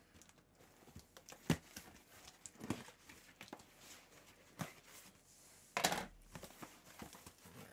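Small cardboard box being opened by hand: the packing tape is slit and the flaps pulled open, with scattered knocks and scrapes of cardboard and a short, louder rip a little before six seconds in.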